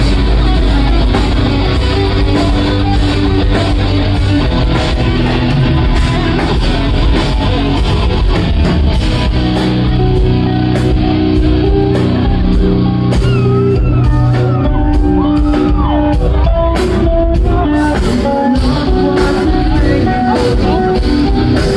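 A live rock band playing loud through a venue PA, with electric guitars, a drum kit and singing, heard from inside the crowd.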